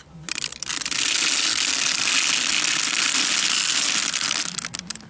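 Rapid ratchet-like clicking, loud and continuous, starting just after the beginning and stopping near the end.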